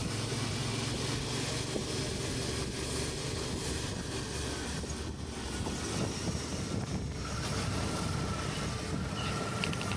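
Suzuki V-Strom 650's V-twin engine running steadily under way, with wind buffeting a muffled helmet microphone. A faint high whine joins about seven seconds in.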